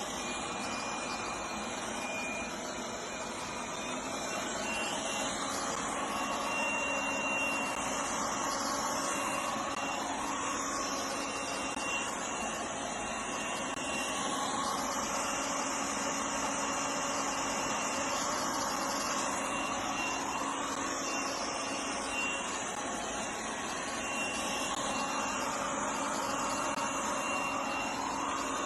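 OKP K8 robot vacuum cleaner running, its suction fan and motor giving a steady whirring hiss with a thin high whine.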